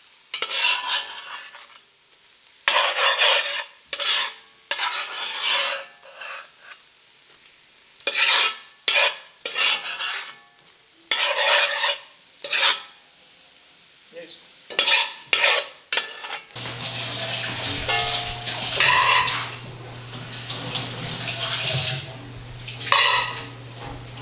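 A spatula stirring and scraping rice with herbs and lobster around a pan, in repeated separate strokes. About sixteen seconds in, this gives way to a steady low hum with a spoon scraping and clinking against a ceramic bowl and pot as the rice is served.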